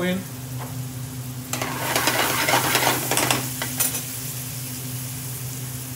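Grated onions, green chillies and bay leaves frying in hot mustard oil in a metal pan, sizzling steadily. About one and a half seconds in, a metal ladle stirs them: the sizzle swells for about two seconds, with a few sharp scrapes and clicks of the ladle against the pan.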